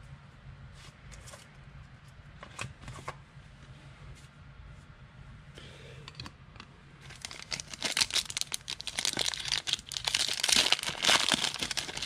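A Panini Playoff football card pack being torn open, its wrapper crinkling loudly in a dense run of crackles for about five seconds, starting some seven seconds in. Before that, only a few faint clicks over a low hum.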